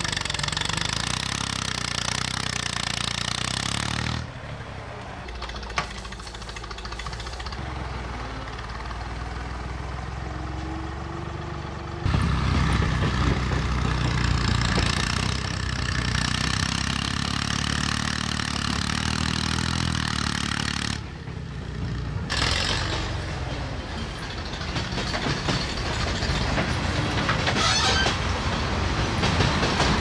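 Massey Ferguson MF-40 backhoe's engine running under load as its front loader bucket pushes dirt. The sound comes in several short stretches that cut abruptly from one to the next, some louder, some quieter.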